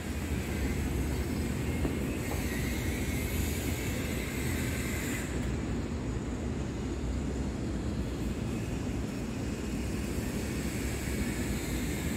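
A steady low rumble with a fainter hiss above it; the highest part of the hiss drops away about five seconds in.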